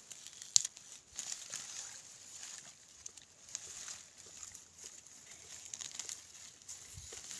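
Long grass-like leaves rustling and crackling as a hand parts them and pulls at the plants, with a sharp snap about half a second in.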